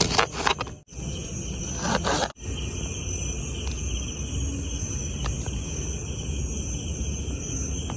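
A knife slicing through a red onion onto a plastic chopping board, several crunchy cuts in the first two seconds. After that, a steady high chorus of night insects, with a few faint knife taps.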